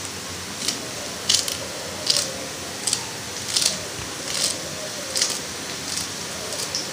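Fresh coriander being cut over a pot of cooked lentils: a crisp snip about every three-quarters of a second, over a faint steady hiss.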